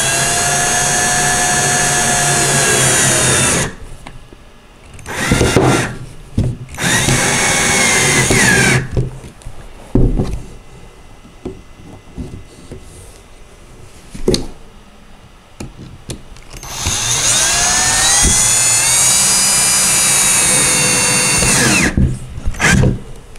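Cordless drill driving screws: a long run, then two short runs between about five and nine seconds in, the second slowing and dropping in pitch at its end. Clicks and knocks follow as the parts and screws are handled, then another long run near the end.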